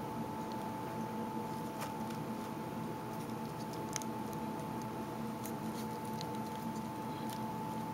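A few faint plastic clicks and taps as a small plastic action figure is handled and posed, over a steady hum with a high tone.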